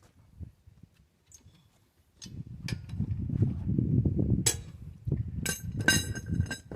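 Sharp metallic clinks of a socket wrench on the wheel's lug nuts, several in the second half, over low rumbling handling noise.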